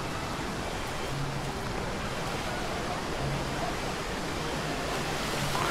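Steady rushing of the Sinia vir waterfall and the Medvenska river in the gorge.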